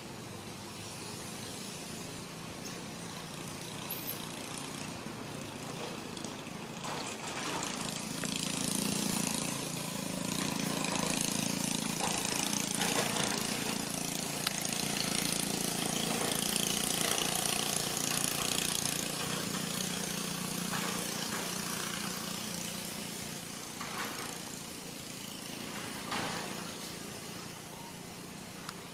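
A motor engine running over a steady outdoor hiss, growing louder about eight seconds in and easing off after about twenty seconds.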